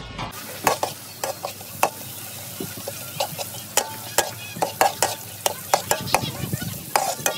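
Metal spatula scraping and clacking against a steel wok, in irregular strokes about twice a second, while ingredients sizzle in hot oil.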